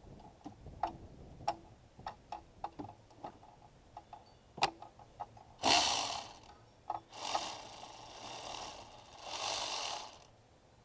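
Electric ratchet with an 8mm socket loosening a battery terminal nut: a series of light clicks and ticks, then a short burst of the ratchet running about halfway in, and a longer run of about three seconds near the end.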